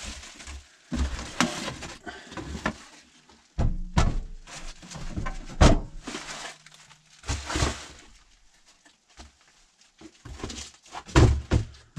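Handling of a parcel being unpacked: cardboard and packing material rustling, with several thunks and knocks as a metal case and the box are moved about on a wooden workbench. A sharp knock comes about halfway through.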